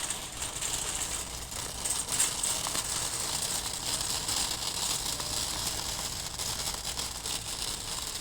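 Air conditioner unit running: a steady hiss over a low hum, with irregular crackling rustle over it.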